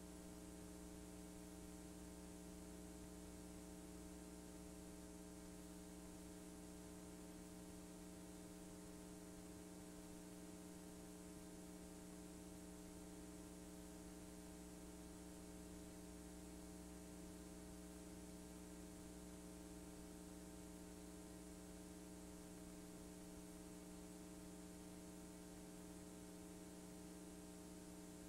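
Near silence: a faint, steady electrical hum with hiss, as on a blank stretch of a VHS-C tape transfer.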